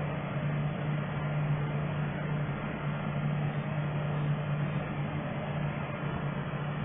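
A steady low hum over a constant hiss of background noise.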